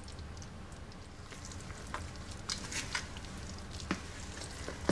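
A hand stirring warm liquid into whole wheat flour in a mixing bowl: soft rustling and squishing, with a few faint clicks from about two seconds in, over a low steady hum.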